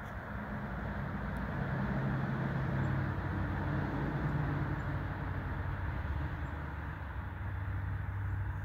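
A steady low engine hum under a rushing noise, starting suddenly and growing louder over the first few seconds before holding level.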